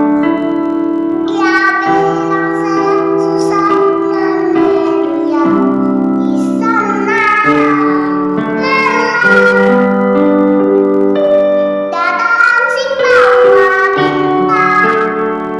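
A girl singing a song over instrumental backing music, holding long notes.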